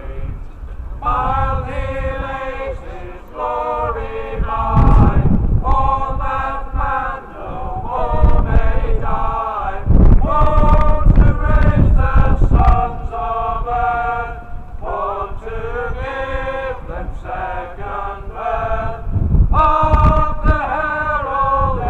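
A man's voice chanting in long, held sung phrases, with gusts of wind rumbling on the microphone.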